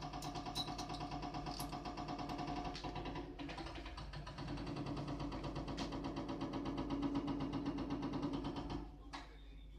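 JCB backhoe loader's diesel engine working hard with a rapid, even pulse while its raised bucket pushes at the top of a brick wall, with a few sharp knocks early on. It grows louder from about five seconds in and drops off shortly before the end.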